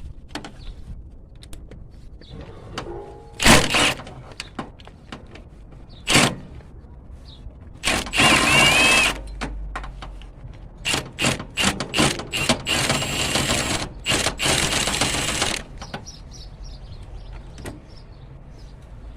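Hand socket wrench ratcheting in several bursts as the bolts of an engine-bay bracket are backed out, with sharp clinks and knocks of tools on metal between.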